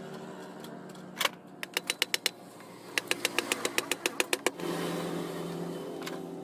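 Runs of sharp metallic clicks: a scattered few, then a fast even run of about seven a second for a second and a half near the middle, over a steady low hum.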